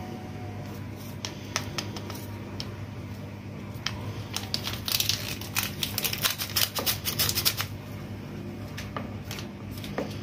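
Paper sachet of vanilla powder crinkling and being tapped as it is shaken out into a plastic flour sieve, a run of small dry clicks and rustles, thickest around the middle.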